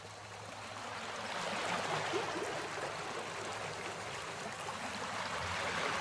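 Waterfall pouring over a rock ledge: a steady rush of falling water that grows louder over the first two seconds, then holds even.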